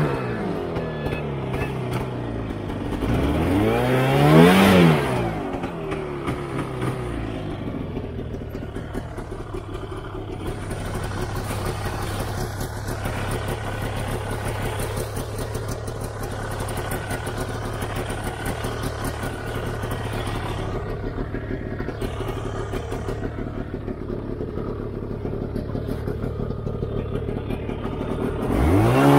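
Yamaha snowmobile engine revving up and back down about four seconds in, then running steadily at low revs, and revving sharply again near the end, as the machine labours in deep snow.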